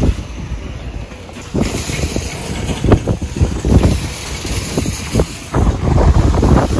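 Wind buffeting the microphone in irregular, loud gusts of low rumble.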